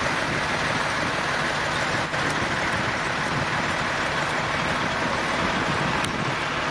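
Fire engines running, pumping water on a fireground: a steady, even rush of noise that does not change.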